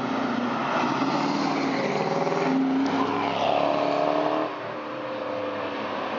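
V8 car engine revving, its pitch climbing from about three seconds in and dropping back sharply about a second and a half later.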